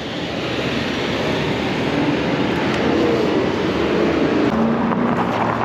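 Road traffic going past: a steady rush of vehicle noise that builds gradually, with an engine note that wavers about halfway through and then holds a steady pitch near the end.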